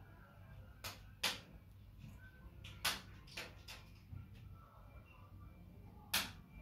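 A quiet room with about six short, sharp clicks or taps. The loudest come about a second in, about three seconds in, and near the end.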